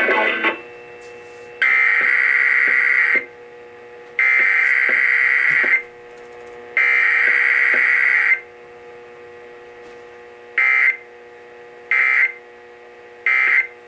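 Emergency Alert System SAME data tones, a harsh warbling digital screech. They come as three bursts of about a second and a half, then three short bursts, the end-of-message codes. A faint steady hum runs beneath.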